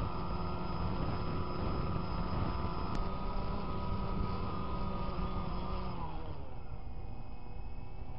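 DJI Phantom quadcopter's motors and propellers running with a steady whine of many tones. About six seconds in, the pitch starts to drop as the drone settles onto the ground and spins down.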